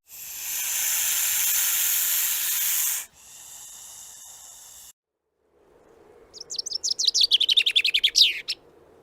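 A loud hiss for about three seconds, then a fainter hiss, then a bird's quick trill of rapid falling notes that grows louder and ends about a second before the close.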